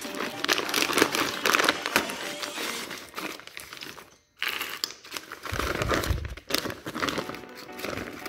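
Plastic packaging crinkling and rustling as it is handled, most likely the wrapping being taken off a new suspension drop link. There is a brief break to near silence about four seconds in.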